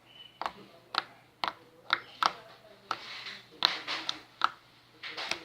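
Soft glossy slime being worked with a spoon, making a run of sharp clicks and pops as trapped air bursts, about two a second.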